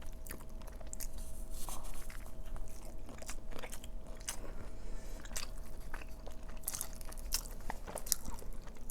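Close-miked chewing and biting into a shrimp taco, heard as many short, irregular wet clicks and crunches. A faint steady hum sits underneath.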